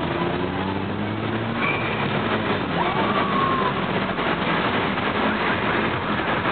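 A car engine running at steady revs, over a dense, steady background of vehicle noise; the engine tone is clearest in the first couple of seconds.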